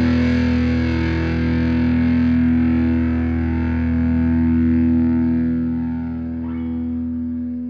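Heavy metal distorted electric guitar chord held and left ringing, slowly fading away at the end of a song.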